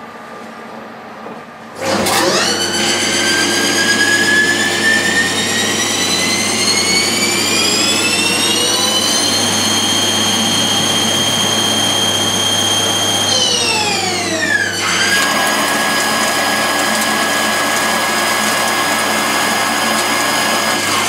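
Haas TL2 CNC lathe running with coolant spraying. The spindle drive's whine starts suddenly about two seconds in and climbs steadily in pitch, holds, then drops away near the middle and settles at a lower steady pitch.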